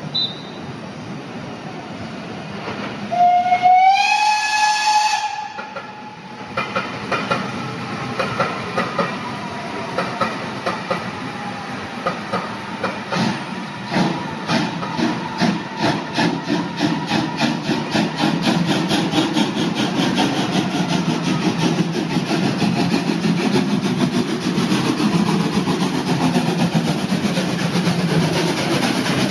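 Steam whistle of the Prussian T 16.1 (DR class 94) tank locomotive 94 1538, one blast of about two and a half seconds that slides up in pitch as it opens. The locomotive then starts off: exhaust chuffs begin slowly and quicken into a rapid, steady beat, over the hiss of steam from its open cylinder cocks.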